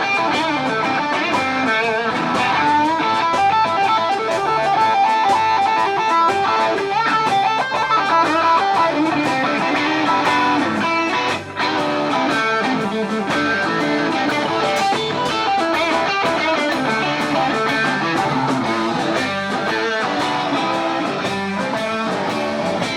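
Live blues-rock band playing an instrumental break: electric guitar lead lines over bass and drums.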